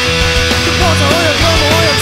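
Punk rock band playing an instrumental passage with no vocals: distorted guitars, bass and drums. About two-thirds of a second in, a high lead melody comes in, its pitch wavering widely up and down.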